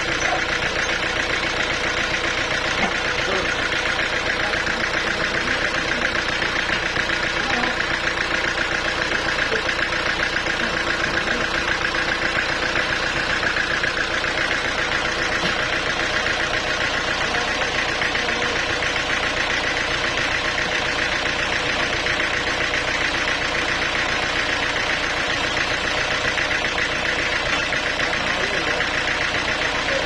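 Band sawmill's engine running steadily with an even, unchanging hum.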